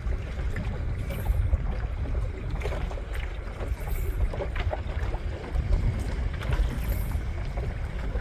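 Wind noise on the microphone over water lapping against a small boat's hull, with a few faint, irregular knocks and ticks.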